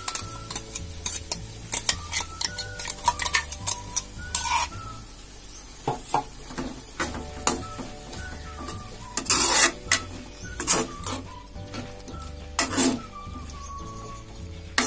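Steel ladle stirring and scraping through chayote masala in a metal pot, clinking against the pot's sides many times, with a few longer scrapes. Ground coconut paste has just been added to the frying vegetables, and a light sizzle runs underneath.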